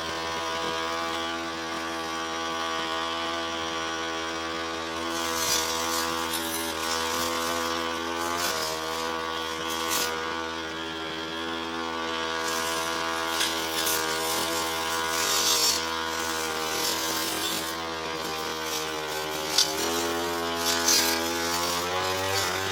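Brush cutter engine running steadily at cutting speed, with the whine of the spinning head dipping slightly under load and rising near the end, and repeated hissing, crackling swishes as the blade mows through tall, thick grass.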